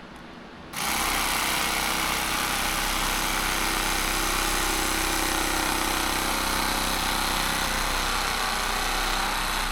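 A power tool switches on under a second in and runs at a steady, even pitch while cutting a block of foam.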